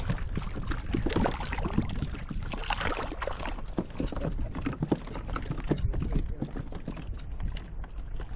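Water splashing and sloshing against a sea kayak, with many irregular knocks and clicks over a steady low rumble.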